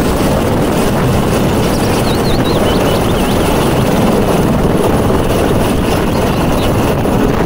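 Light helicopter's turbine and rotor noise, a loud steady roar as it lifts off the pad into a low hover.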